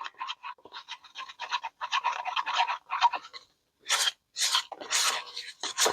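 Stir stick scraping and stirring resin in a mixing cup, rapid strokes several a second, with a brief pause about three and a half seconds in and then a few stronger scrapes.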